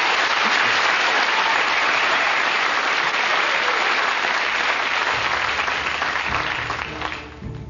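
Studio audience applauding, dying away near the end as low music comes in.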